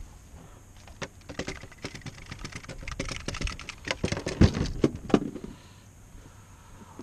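Fishing tackle handled in a canoe: a run of quick clicks and knocks, loudest about four and a half seconds in, dying away near the end.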